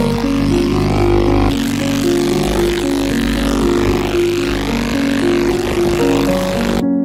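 Ultrasonic cleaner running: a steady hiss and hum from the bath, with background music of changing notes laid over it. The cleaner's noise cuts off suddenly near the end, leaving the music.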